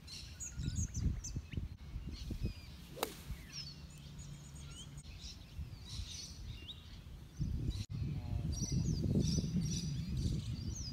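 Small birds chirping and twittering in short up-and-down calls, over a low rumbling noise that grows louder about seven seconds in.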